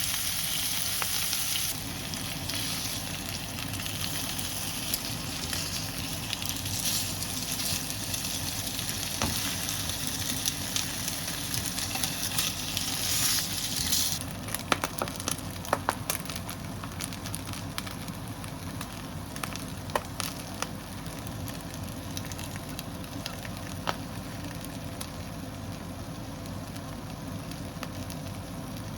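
Food frying in oil in a pan, a steady sizzle that is loud for about the first half, then drops away to a quieter sizzle with scattered pops and crackles.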